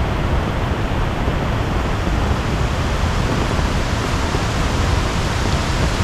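Steady rushing of water from a rain-swollen monsoon waterfall close by, mixed with falling rain.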